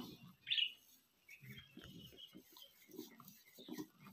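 A zebu cow munching dry chopped straw fodder, with irregular low crunching and rustling as it grazes with its muzzle in the feed. Two short high bird chirps come near the start.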